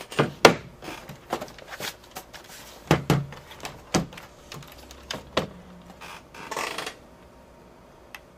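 A run of sharp knocks and clicks from a Compaq Presario 2100 laptop being handled on a desk: the battery set down, the machine flipped over and its lid opened. A short scrape comes just before the knocks stop.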